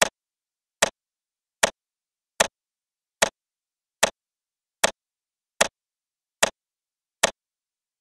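Countdown tick sound effect: a sharp click, evenly spaced, about five every four seconds, with silence between, one tick for each number counted down.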